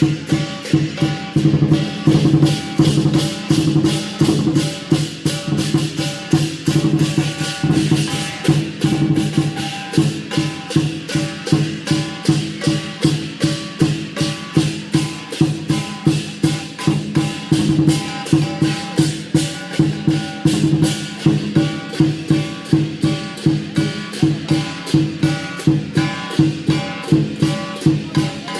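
Lion dance percussion, with drum, cymbals and gong beaten in a fast, steady rhythm over ringing metal tones.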